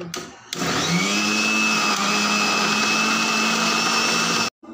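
Kitchen mixer grinder with a steel jar grinding coriander into a green masala paste: the motor starts about half a second in, rises to speed, runs steadily, and stops suddenly near the end.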